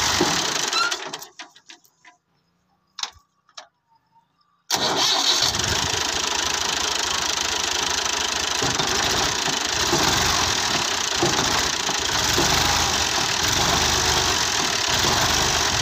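New Holland 480 tractor's three-cylinder diesel engine running. About a second in the sound drops away to near silence with a few faint clicks, then cuts back in abruptly almost five seconds in and runs steadily.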